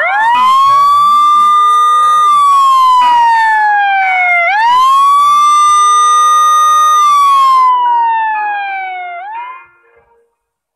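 Synthesized siren sound effect in the music: a loud siren tone rises quickly, holds, then slides slowly down, twice over. A third rise starts about nine seconds in and cuts off suddenly.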